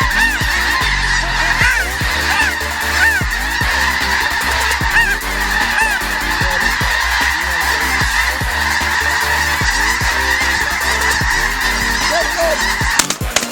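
A large flock of snow geese calling, with many high honks overlapping into a dense, continuous din. It cuts off abruptly near the end.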